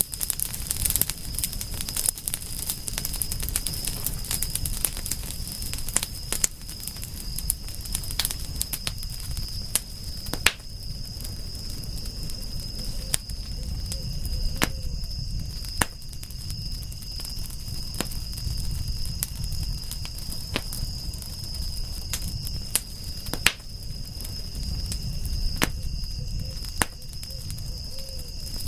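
Wood fire crackling, with sharp pops at irregular intervals over a low rumble of the flames and a steady high-pitched tone in the background.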